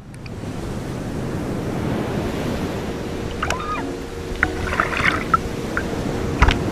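Sea water lapping and sloshing around a camera held at the waterline, with wind. A few short, sharp sounds come in the second half.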